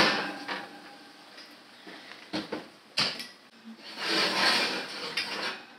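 Cast iron skillet and wire oven rack clattering as the rack is pushed into the oven: a sharp clank at the start, a couple of lighter knocks, then a longer grating scrape about four seconds in as the metal rack slides on its rails.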